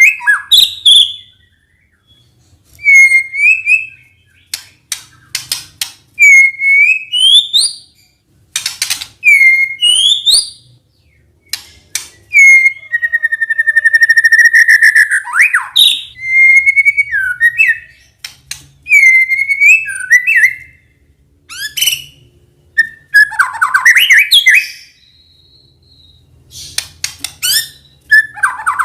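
White-rumped shama (murai batu) singing: loud whistled phrases that swoop up and down, repeated every couple of seconds, with sharp clicking notes between them and one longer, buzzier note about halfway through.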